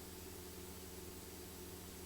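Cessna 172's engine and propeller droning steadily in cruise, heard faintly from inside the cabin as an even hum under a hiss.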